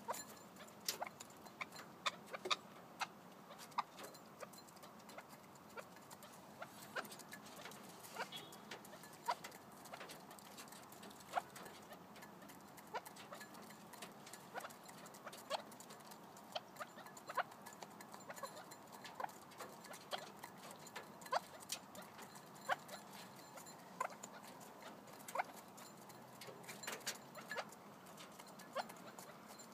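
Red-legged partridges pecking feed from a bowl: irregular sharp clicks and taps of beaks on the bowl and grain, one to a few a second.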